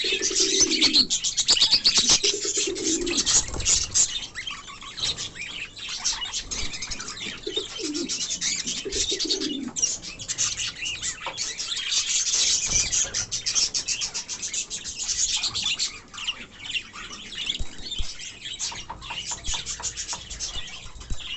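Many small birds chirping and chattering continuously in high, dense calls, with four low, falling calls in the first half.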